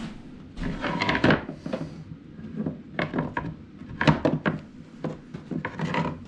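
Wooden drawers of a Gerstner machinist's tool chest sliding and knocking, in about four short bursts.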